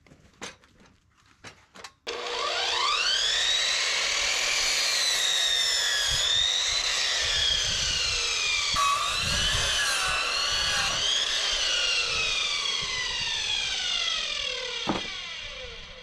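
A power tool's motor spins up quickly about two seconds in and runs with its pitch wavering under load, as when cutting. It then winds down slowly over the last few seconds, with a short knock near the end.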